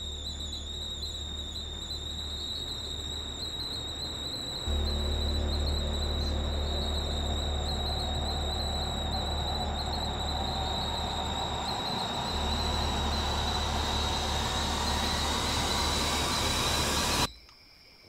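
Horror-film sound-design drone: a steady high-pitched ringing tone over a deep low rumble. It grows louder about five seconds in, swells steadily, then cuts off suddenly about a second before the end.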